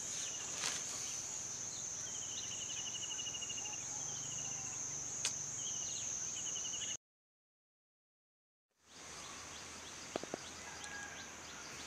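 Insects droning steadily in a high, even hum, with several short rapid chirping trills over it and a couple of faint clicks. The sound drops out completely for about two seconds a little past the middle, then the insect hum returns.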